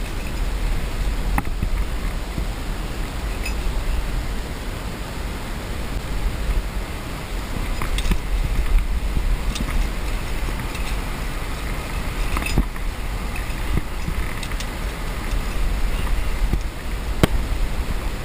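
Wind rumbling on the microphone, a steady buffeting noise, with a few sharp clicks and knocks scattered through it.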